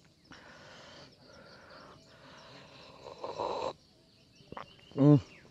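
Hot coffee being slurped from a stainless steel mug: a breathy sip of about three seconds that grows louder near its end. It is followed about five seconds in by a short vocal 'ahh'.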